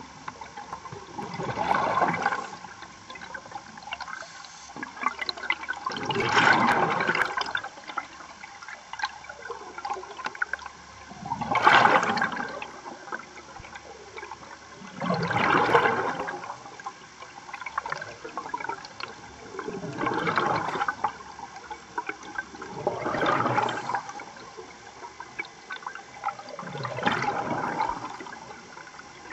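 A scuba diver breathing underwater through a regulator: exhaled bubbles rush out in a burst about every four seconds, seven times.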